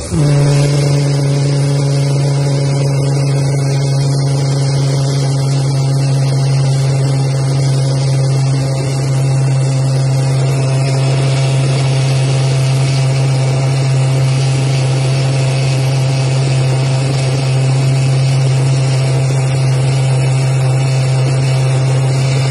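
Blue Heron 120 pulse jet engine on a homemade kart, running at speed: a loud, steady drone on one unchanging low pitch with a stack of overtones, running really nice.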